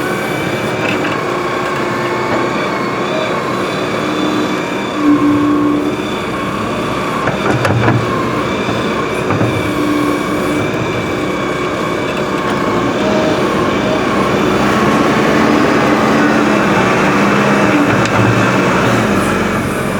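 Diesel engines of Hydrema 906D backhoe loaders running under working load, the pitch shifting as the machines dig and move, growing louder in the second half.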